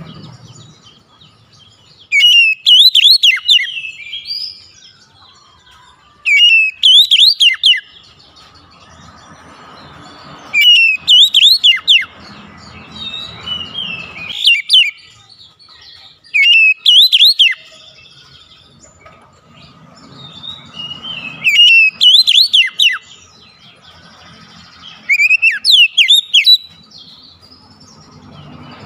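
An Oriental magpie-robin singing loud whistled phrases of quick rising and falling notes. About seven phrases come one every four seconds or so, each lasting a second or two.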